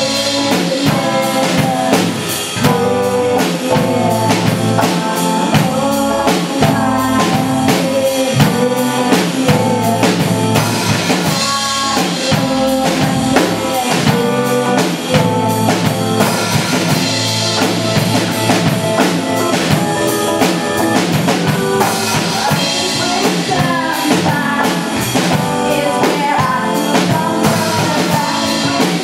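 A rock band playing a cover of a song, with drum kit, guitar and singing over a steady beat.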